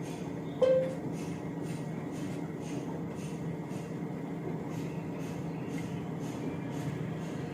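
A single short electronic beep from the washing machine's touch panel about half a second in, over a steady low hum with a soft ticking about twice a second.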